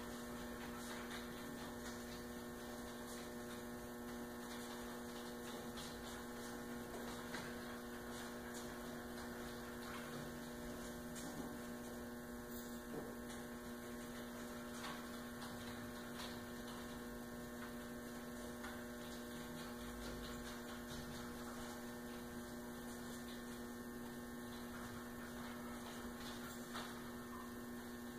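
Steady electrical mains hum, a low even drone, with faint scattered ticks over it.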